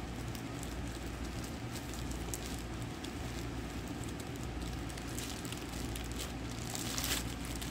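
Thin clear plastic wrap crinkling and crackling as it is peeled off a vinyl doll's leg, with the crackles thicker and louder near the end, over a steady low hum.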